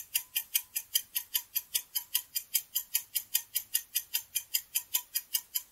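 Clock-ticking sound effect marking a quiz countdown timer: steady, even sharp ticks, about five a second.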